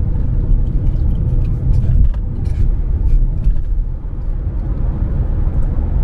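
Steady low road and engine rumble of a moving car, heard from inside its cabin.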